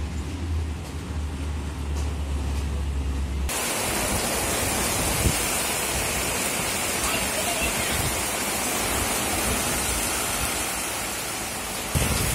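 A low steady hum for the first few seconds, then heavy rain falling: a dense, even hiss, with wind buffeting the microphone in low rumbles.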